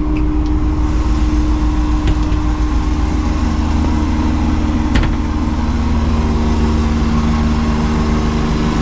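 Sailboat's inboard engine running steadily, a constant low hum with a steady tone over it. A single sharp knock sounds about five seconds in.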